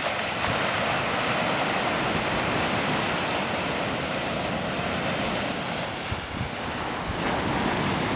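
Sea surf breaking and washing up a sandy beach, a steady rushing wash, with wind blowing on the microphone. It swells up suddenly at the start and holds steady.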